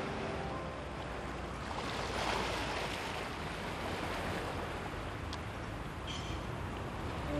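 Gentle sea waves washing onto a beach: a steady rushing that swells a little about two seconds in.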